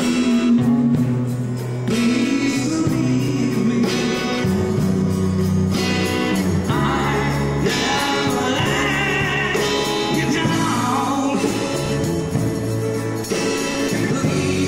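Live band music: drums, guitars and a bass line holding long low notes, with an electric guitar playing lead lines that bend and waver in the middle.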